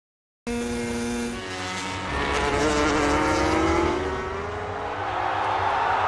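MotoGP racing motorcycle engines at high revs, starting about half a second in, their pitch falling and rising. A noisy roar grows louder near the end.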